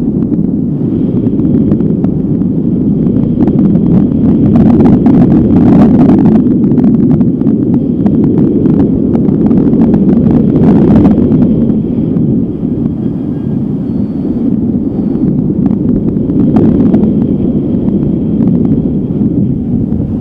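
Strong wind buffeting the microphone: a loud, steady rushing that swells and eases, strongest around five to eleven seconds in and dipping a little after twelve.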